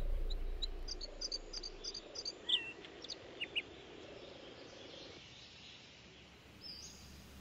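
Background music fading out within the first second. Then quiet open-grassland ambience with a quick run of short high chirps and a few separate calls from small wildlife, and one faint whistle near the end.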